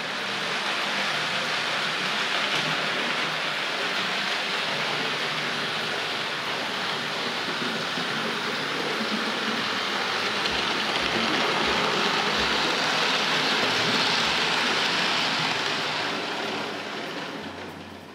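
Hornby 00-gauge model train, an L.M.S. Class 5 locomotive pulling maroon coaches on silver seal metal wheels, running on System 6 track: a steady rolling rattle of wheels and motor that fades away near the end as the controller is turned down.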